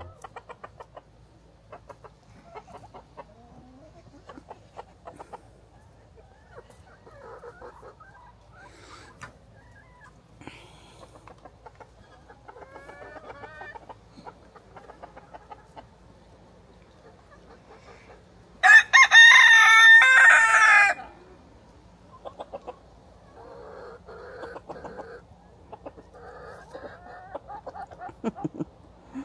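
Chickens clucking softly, with one loud rooster crow lasting about two seconds near the two-thirds mark.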